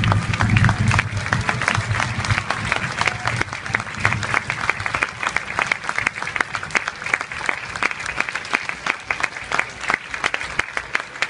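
Large crowd of spectators applauding, dense steady clapping throughout, with a low rumble underneath in the first two seconds.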